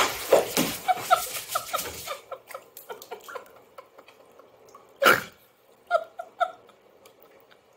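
Water splashing in a bathtub as a cat scrambles in it, dying away after about two seconds. A few short high squeaks follow, and there is one sharper sound about five seconds in.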